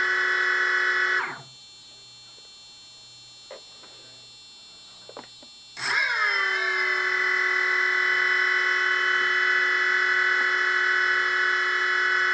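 T-Motor MN2214 brushless motors on a DJI Phantom Vision quadcopter spinning with no propellers, a steady high whine of several tones, being test-run to check their spin direction. The whine winds down about a second in, and after a few quiet seconds with two faint clicks it starts abruptly again, settles after a moment and winds down at the very end.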